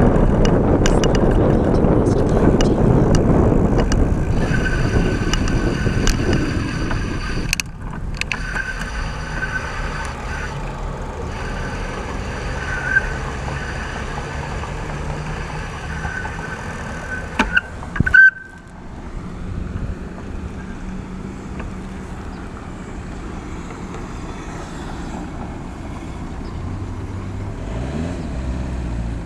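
Road traffic heard from a bicycle on a city highway. A loud rush of passing vehicles fills the first few seconds. Then comes a steady high whine over a low engine rumble, with a few sharp clicks, and near the end an engine note rises.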